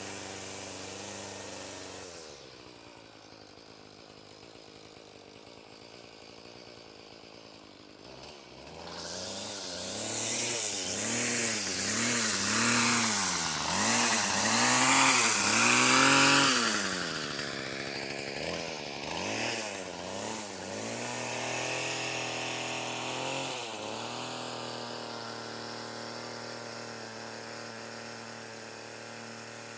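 Gas weedwacker (string trimmer) engine idling, then revved up and down repeatedly in a run of throttle bursts from about a third of the way in, loudest in the middle, with a few smaller revs before it drops back to a steady idle.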